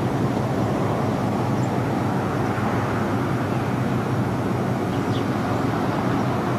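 Steady low rumble of distant vehicle noise outdoors, with a faint low hum and no distinct events.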